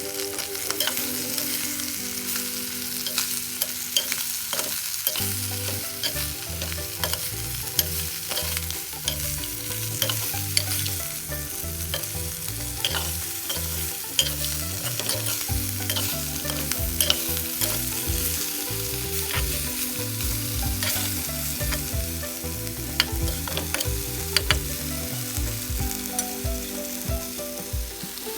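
Chicken pieces sizzling as they fry in a pan, stirred now and then, with scattered clicks of the spoon against the pan.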